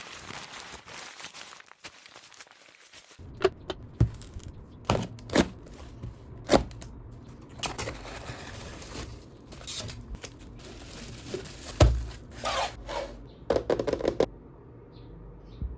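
Packaging being opened and handled: tearing and crinkling with scraping, broken by a series of sharp clicks and knocks, the loudest a little before the twelfth second.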